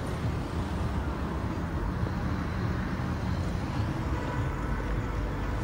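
Steady outdoor street noise: a constant hum of road traffic with no distinct events.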